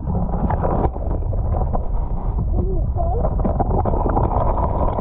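Muffled water rushing and rumbling against an action camera held underwater beneath the river ice, with a brief muffled wavering sound about halfway through.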